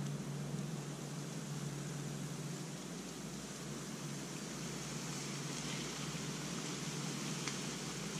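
Steady low hum and hiss of background noise, with one faint click near the end.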